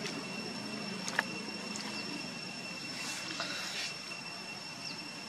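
Steady outdoor background: a low hum like a distant engine under a constant high-pitched whine, with a few faint clicks.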